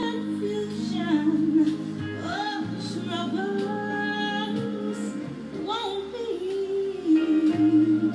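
Music: a woman singing a melody with vibrato over instrumental backing.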